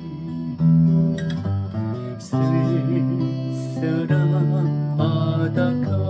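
Steel-string acoustic guitar playing the slow instrumental intro of a song: notes and chords ring on, with strongly struck notes about half a second and two and a half seconds in, and some notes wavering with vibrato.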